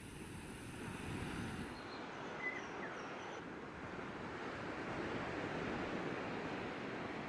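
Ocean surf breaking and washing up the beach, a steady rushing that swells and eases.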